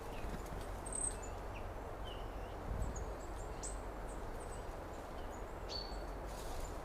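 Summer outdoor ambience: scattered short bird chirps over a steady background noise, with a couple of faint low knocks.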